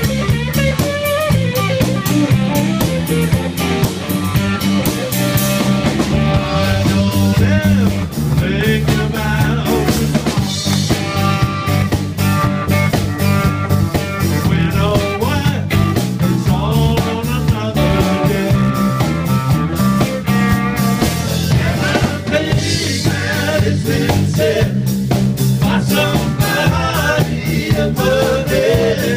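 Live band playing a country-rock song: electric guitar, electric bass and drum kit, loud and continuous.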